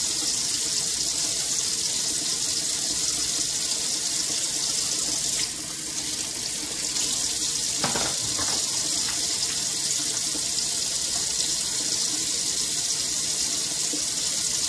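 Kitchen faucet running a steady stream into the sink while bottle parts are washed by hand. The water sound changes briefly about five seconds in, and a couple of light knocks come about eight seconds in.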